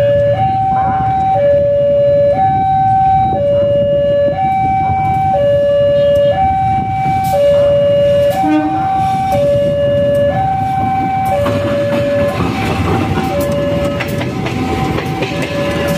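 Railway level-crossing warning alarm sounding a steady two-tone hi-lo signal, about one second on each tone, while a CC 203 diesel-electric locomotive approaches. Locomotive and wheel noise rises over the last few seconds as it passes close and partly covers the alarm.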